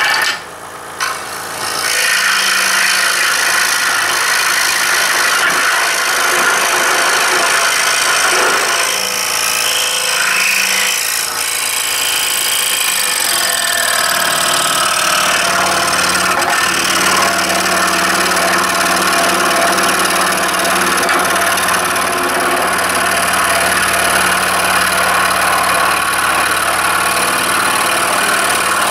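Scroll saw running, its reciprocating blade cutting through a wooden CO2 dragster blank in a steady mechanical buzz. The sound dips briefly just after it starts, and from about halfway through a steady low hum runs under it.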